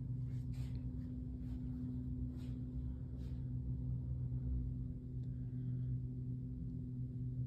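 A steady low hum made of a few constant tones, with a few faint short clicks in the first three seconds.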